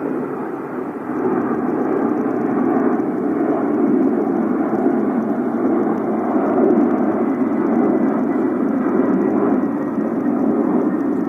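Airplane flying overhead: a steady, even engine noise with no sudden changes.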